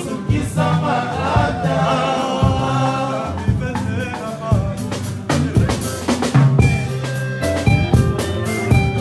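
Congolese band music: voices singing over drums for the first few seconds, then drum kit and picked guitar notes carry on.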